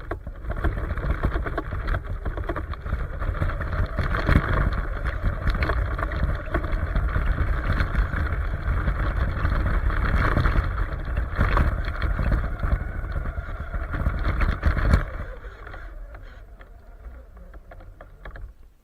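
Radio-controlled truck driving through snow: its motor and drivetrain run loud and steady with many small knocks, then drop to a much lower level about fifteen seconds in.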